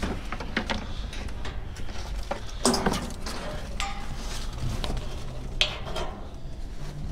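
Clattering and rustling of merchandise, bags and boxes being shifted about inside a dumpster: a string of irregular knocks and scrapes, the loudest knock about two and a half seconds in.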